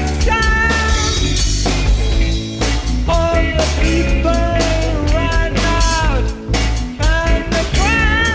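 Rock song with singing over drum kit and bass, a steady beat.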